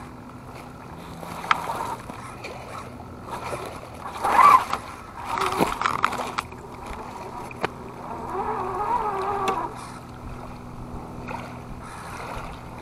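Creek water rushing and splashing over rocks close by, with an RC crawler's electric motor and gears whining in bursts as it crawls along the bank; the loudest burst comes about four and a half seconds in.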